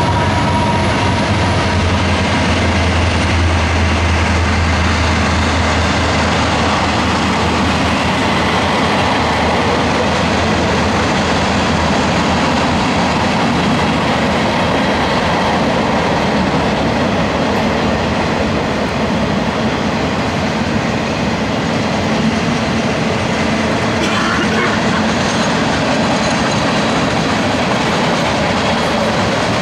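Freight train cars rolling past at close range: a steady, loud rumble and clatter of steel wheels on the rail. A low hum underneath fades out over the first several seconds.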